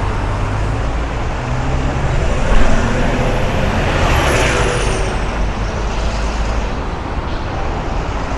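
City street traffic: a steady rumble of road vehicles, with a brief louder burst of noise about two and a half seconds in and a faint high whine rising and falling around the middle.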